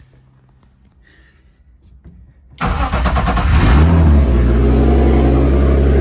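Turbocharged BMW M50 straight-six starting up about two and a half seconds in, revving briefly and settling into a steady, loud idle.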